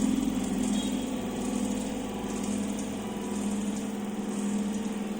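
The motor of a motorcycle ignition and charging system trainer running steadily with an even hum, with the ignition switched on and the spark plug firing.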